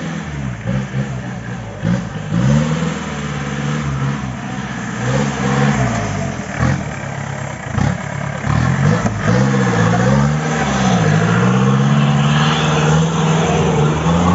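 Off-road jeep's engine revved hard again and again, its pitch swinging up and down as the driver works the throttle through mud and up a steep dirt climb, then holding a steadier, higher rev near the end. A few sharp knocks sound around the middle.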